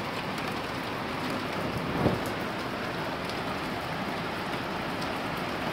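Heavy rain mixed with small hail falling on concrete paving: a steady hiss with faint fine ticks. A single dull knock about two seconds in.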